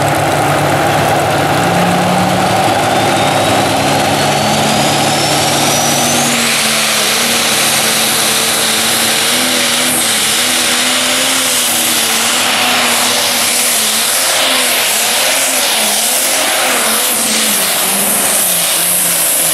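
Super stock pulling tractor's turbocharged engine building revs with a whistle rising over several seconds. About six seconds in it goes flat out under full load dragging the weight-transfer sled, its pitch wavering up and down.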